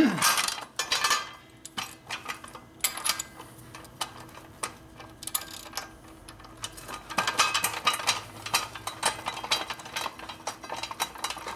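Ratchet wrench clicking as it cranks the threaded shaft of a steel screw jack, with metal-on-metal clanks; it opens with a loud clank. The screw is being worked through a tight spot.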